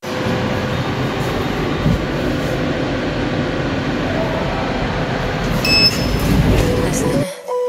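Steady rumbling noise that starts suddenly and cuts off about seven seconds in.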